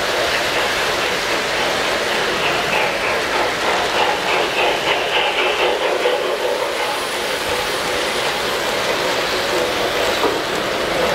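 O-scale three-rail model trains running past on the track: a steady metallic rumble of wheels on rail, with a rapid clicking clatter through the middle.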